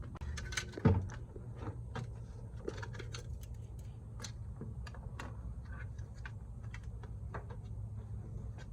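Light, irregular clicks and knocks of cold air intake parts being handled and fitted: a rubber coupler, metal hose clamps and the intake pipe. There is a sharper knock about a second in, over a steady low hum.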